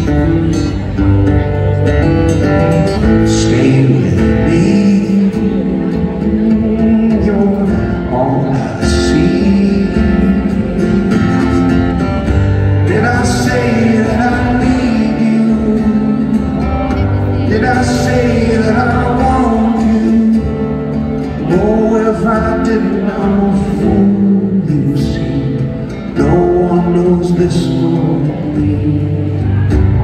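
A male singer performing live with a strummed acoustic guitar, heard through a concert sound system.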